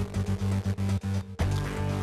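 Electronic outro music with steady low tones. In the first second and a half it stutters in quick chopped gaps and cuts out briefly, then the steady tones come back.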